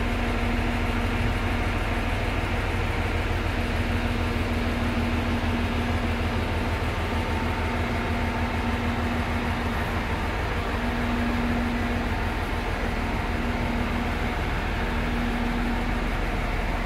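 A stationary JR East E531-series electric train (set K451) idles at the platform. Its onboard auxiliary equipment and air-conditioning give a steady hum over a low rumble, with a faint tone that comes and goes.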